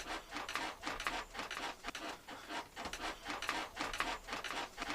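Hands rubbing balm into a person's bare back: quick rhythmic rubbing strokes, about four a second.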